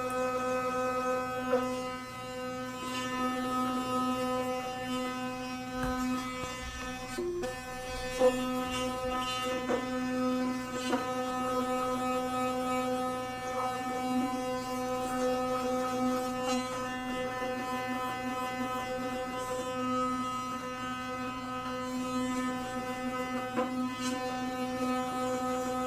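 Electric toothbrush buzzing steadily while brushing teeth: one steady pitched buzz with many overtones whose loudness wavers slightly as the brush moves. A few light knocks sound over it, the sharpest about eight seconds in.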